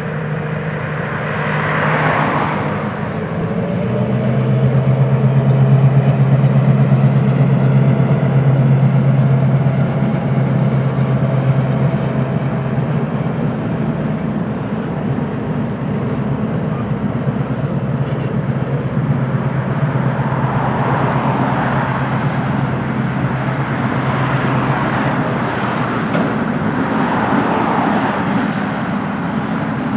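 Diesel freight locomotive passing with a steady low engine drone, which gives way after about a dozen seconds to the rumble of freight cars rolling across a bridge. A car hisses past on wet pavement near the start.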